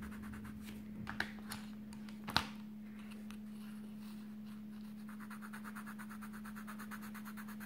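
Giotto coloured pencil scratching lightly on smooth paper, with a few light clicks and one sharper tap about two and a half seconds in. From about five seconds in come rapid, even back-and-forth shading strokes, over a steady low hum.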